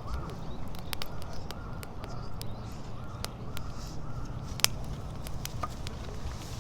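Firewood burning in a fire pit, crackling with frequent sharp pops. A bird calls repeatedly through roughly the first half.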